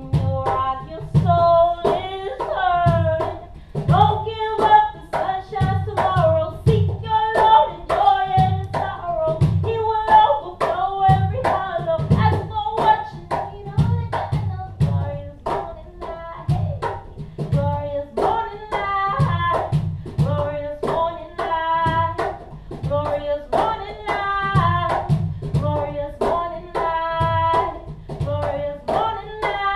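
A woman singing a melody over a cajón played by hand, its deep thumps and sharper slaps keeping a steady beat.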